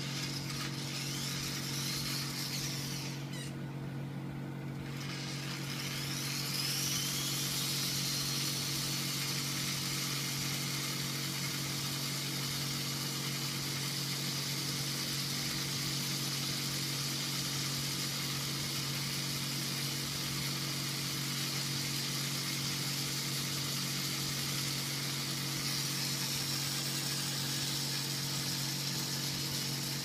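Zhonglian Sky Star mini ceiling fan motor humming while it drives a Lego gearbox and model fan, which whir. The high whine rises in pitch a few seconds in as the model fan spins up, then holds steady at full speed.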